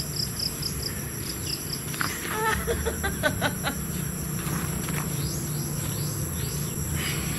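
Insects droning steadily at a high pitch, with a quick run of repeated chirps in the first second and a half and a few short bird calls around the middle.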